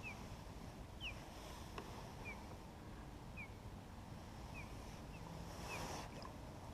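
Faint sounds of a fishing kayak on the water, with a short high squeak repeating about once a second.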